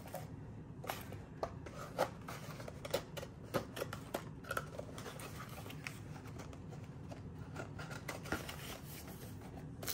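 Light handling sounds of a small paper box of washi tape rolls being handled and closed on a stone countertop: scattered soft clicks, taps and rubs of paper against paper.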